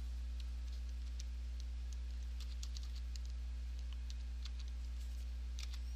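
Computer keyboard keys clicking in short runs as a name is typed, over a steady low hum.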